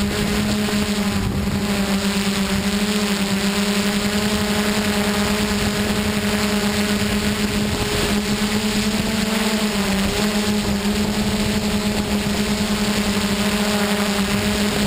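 DJI F550 hexacopter's motors and propellers running in a steady hover, heard from the camera on board: a loud, even hum over a rushing hiss, its pitch wavering slightly about nine to ten seconds in.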